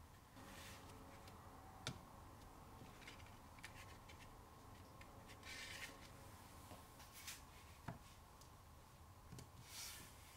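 Faint handling of paper cards on a wooden desk: soft paper rustles and two light sharp taps, about two seconds in and about eight seconds in, as a wooden rubber stamp is pressed and lifted and a pen is set down.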